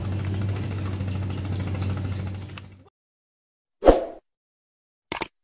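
A steady low mechanical hum fades out about three seconds in. After a second of silence come the subscribe-button animation's sound effects: a short whoosh, then a quick double click.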